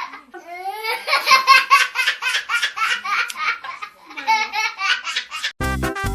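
Laughter: a rising whoop, then a long run of quick, high-pitched laughing bursts. Background music with a beat comes in near the end.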